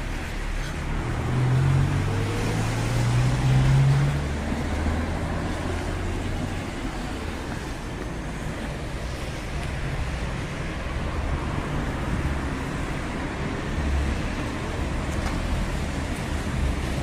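Street traffic on a wet road: a car engine passes close by, its note rising in pitch during the first few seconds, over a steady hiss of tyres on wet asphalt.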